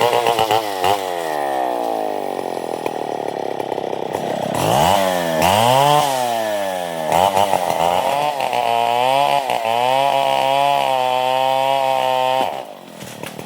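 Two-stroke chainsaw cutting johar wood. The engine revs up and falls back a few times, then holds at high revs with a wavering pitch for several seconds before dropping to idle near the end.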